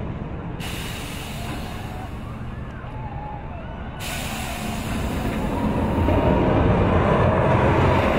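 Low rumbling of a steel roller coaster running on its track, swelling louder over the last few seconds.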